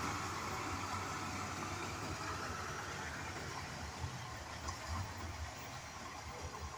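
Dump truck's diesel engine running at low revs, a steady low rumble under a haze of noise that grows gradually quieter.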